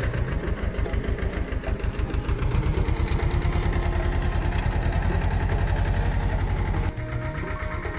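Mahindra Jivo 30 HP compact tractor's diesel engine running steadily under load as it pulls a tine cultivator through the soil, a fast, even chugging. It drops a little in level near the end.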